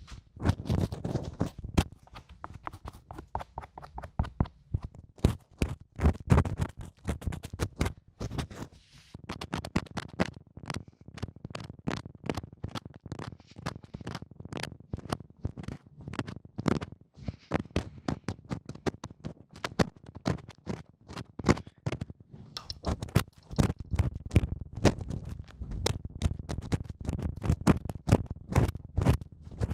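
Close-miked ASMR trigger sounds: rapid, irregular taps and scratches on an object right at the microphone, several a second.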